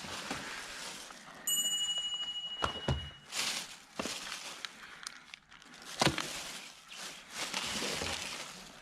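Metal engine spare parts being handled: scattered knocks and clinks, and one clear ringing tone about a second and a half in that dies away over about two seconds.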